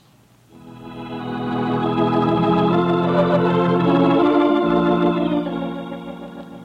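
Organ music bridge: sustained chords swell in about half a second in, hold, then fade away near the end, marking a scene change in the radio drama.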